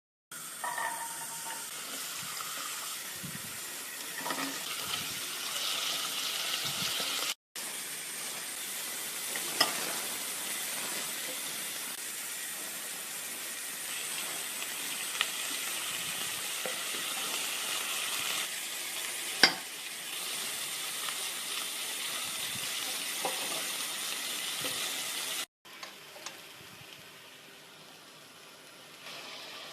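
Food sizzling in hot oil in a pan as it is stirred, a steady frying hiss with a few sharp clicks of a utensil against the pan.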